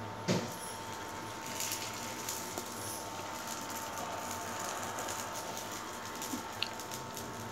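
Batter being spooned into the hot oiled wells of a paniyaram pan and sizzling faintly in the oil, with a single knock of the spoon against the pan near the start. A steady faint hum runs underneath.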